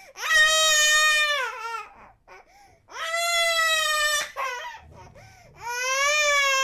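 A baby crying: three long wails, each dropping in pitch at its end, with short catching sobs between them; the third wail is still going at the end.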